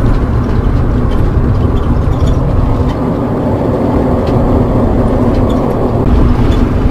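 Motorhome driving along, heard from inside the cab: a steady low rumble of engine and road noise, with faint small rattles.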